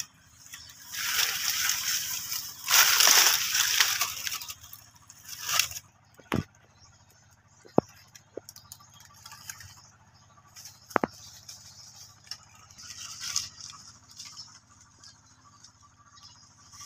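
Rustling and crackling of leaves and dry banana fronds as young monkeys scramble through the plants, loudest in the first few seconds. A few sharp clicks follow.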